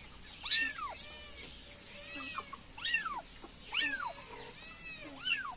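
Young kitten meowing over and over, about five high, arching cries roughly a second apart. These are the calls of a hungry kitten separated from its mother.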